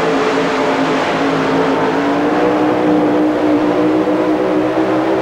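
Twin-engine super modified pulling truck running at full throttle under load as it drags the weight sled down the track, its engine note climbing slightly.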